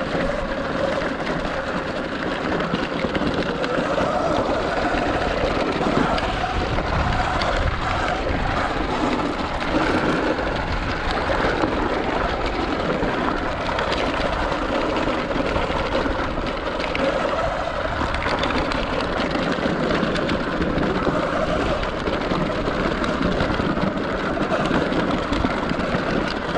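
Sur Ron X electric dirt bike being ridden: a steady rush of tyre, drivetrain and wind noise, with a faint wavering tone that rises and falls.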